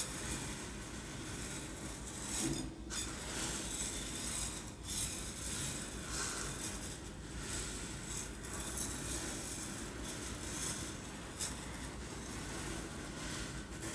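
Uncooked rice grains shaken and rolled in a container, a continuous rushing hiss that swells and fades every second or two, imitating waves on a beach.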